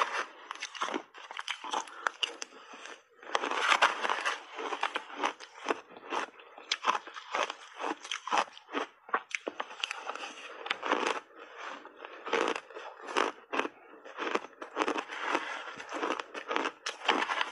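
Crunching and chewing of frozen blueberry shaved ice coated in milk powder: a dense run of sharp, crackly crunches, louder for a spell about four seconds in and again near the end.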